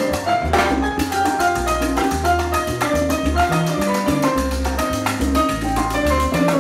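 Live salsa band playing: timbales, congas and bongos over a bass line that steps between notes, with piano.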